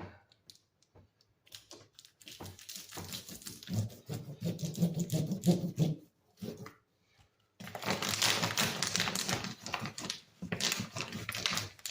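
Crackling and rustling of adhesive tile setting mat being handled and rubbed down by hand. It comes in two stretches, the second louder and denser, beginning about halfway through.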